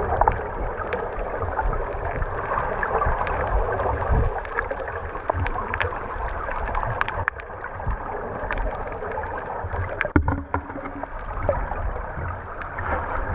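Underwater noise picked up through a camera housing: a steady rushing and bubbling from scuba divers' exhaled air, with scattered clicks and a deep rumble.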